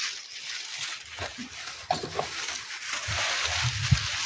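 Thin plastic carrier bag rustling and crinkling as hands rummage in it, with wind buffeting the microphone.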